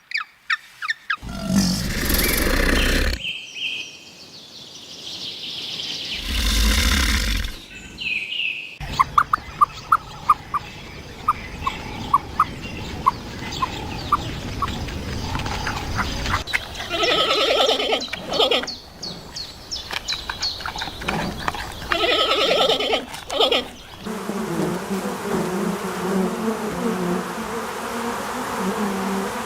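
A string of different animal calls, one after another: two loud rough calls early on, then a run of evenly spaced ticks, then several pitched calls.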